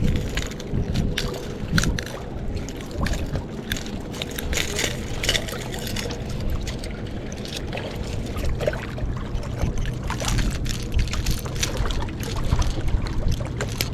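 Wind rumbling on the microphone over water lapping, with scattered light clicks and knocks of handling.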